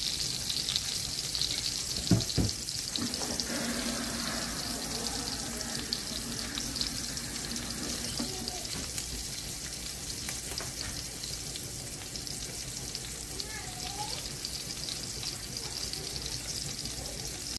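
A split gray squirrel sizzling steadily in hot oil in a cast-iron skillet as it browns. A couple of sharp knocks come about two seconds in.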